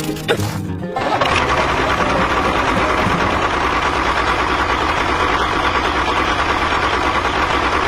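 A small motor, the kind that drives a homemade model tractor, starts suddenly about a second in and then runs steadily.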